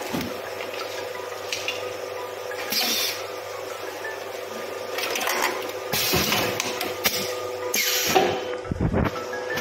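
Soda bottle filling machine running with a steady hum, broken by several short hissing bursts as bottles are filled. A low thump comes near the end.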